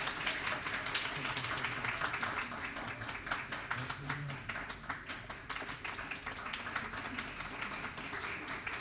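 Audience applauding, a steady patter of many hands clapping that slowly eases, with voices mixed in.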